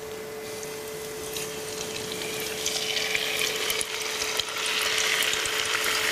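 Floured vegetable sticks frying in hot peanut oil in a small saucepan: the oil sizzles and crackles, growing louder about halfway through as the pieces go in.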